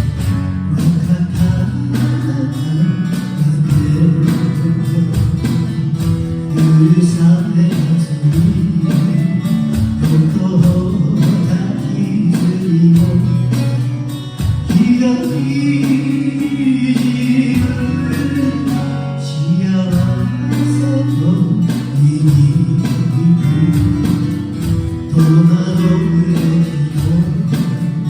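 Live performance of a slow ballad: strummed acoustic guitar accompaniment with singing.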